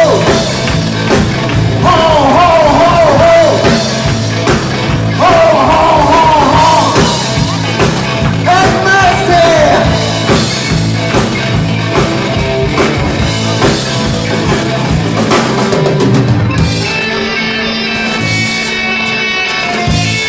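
Live rock band playing amplified through PA speakers: drum kit keeping a steady beat under electric guitars, with a singer's voice wavering over it in roughly the first half. The singing then drops out and the band plays on instrumentally.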